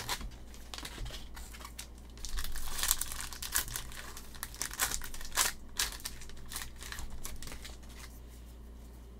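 Cellophane wrapper of a Prizm basketball card pack crinkling and tearing as it is ripped open by hand, in irregular crackles that are busiest in the middle and thin out near the end.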